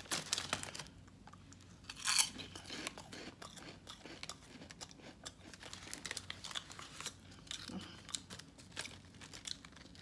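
Bocabits, a crisp salted wheat snack, bitten with one loud crunch about two seconds in and then chewed with many small, crackling crunches.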